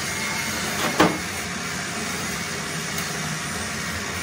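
Steady machine hum of a lathe workshop, with one sharp metallic knock about a second in as the lathe's tool post is worked with a wrench.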